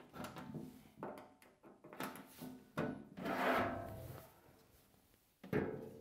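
Steam humidifier's housing cover being unlocked with a slotted screwdriver and pulled off: short clicks and knocks, a longer scraping rub about three seconds in as the cover comes away, and a knock near the end as it is set down.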